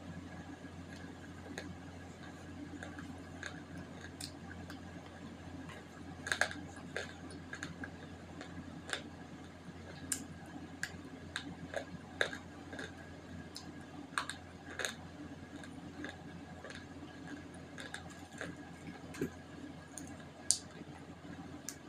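Close-up mouth sounds of eating wet multani mitti (Fuller's earth) clay paste off a slate pencil: scattered sharp, sticky chewing and crunching clicks, thickest in the middle, over a steady low hum.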